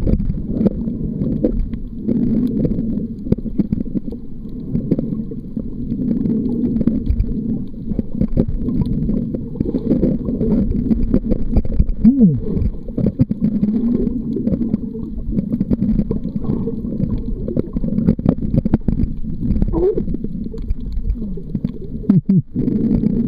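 Muffled underwater noise picked up by a waterproof camera held below the surface: a steady low rumbling and gurgling of moving water, with scattered small clicks and a couple of brief gliding tones.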